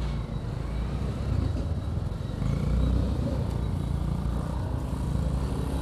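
Motorcycle engine running as the bike rides along a road, with steady road and traffic noise; the rumble grows a little louder about two and a half seconds in.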